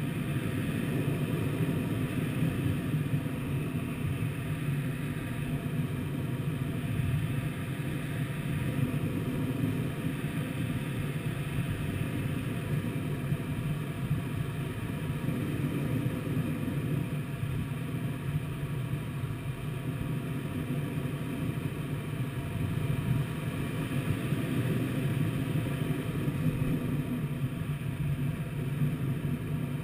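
Steady rush of airflow around the canopy of a Twin Astir glider in flight, heard from inside the cockpit as an even, mostly low rumble.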